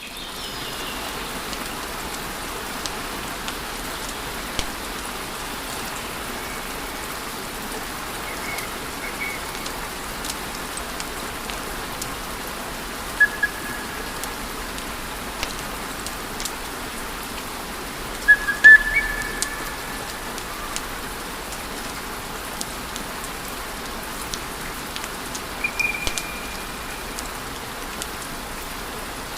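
Wood fire crackling: a steady hiss with scattered sharp pops and snaps, and a few brief high whistles from the burning logs. A louder cluster of pops with a whistle comes a little past the middle.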